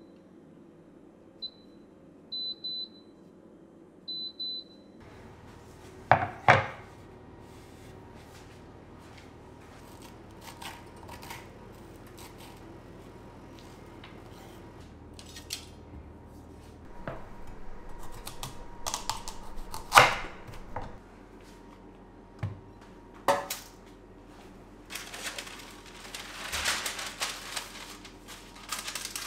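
Short high beeps from a Küppersbusch oven's touch-control panel as its settings are selected, then kitchen handling noise: a spoon scraping the seeds out of a halved Hokkaido pumpkin, a few sharp knocks, and baking paper crinkling as it is unrolled near the end.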